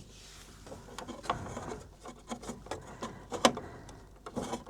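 Small clicks, taps and scrapes of a hand tool working a transport screw out of a Bambu P2S 3D printer, with a sharper click about a second in and the loudest one about three and a half seconds in.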